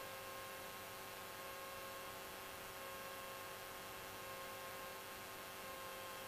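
Faint, steady hum with hiss: the Cessna 172's engine running steadily in flight.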